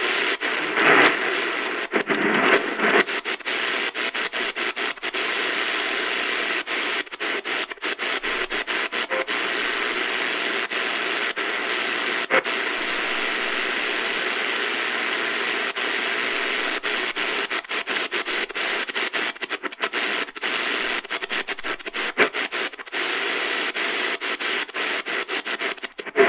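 Static and hiss from the speaker of a Tiemahun FS-089 portable radio as its tuning knob is turned across the shortwave band between stations. The hiss cuts out briefly over and over as the digital tuning steps, with a few louder bursts in the first few seconds.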